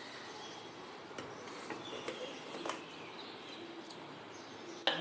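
Quiet background: a faint steady hiss with a few faint, short high chirps, like birds outside, and a few soft clicks.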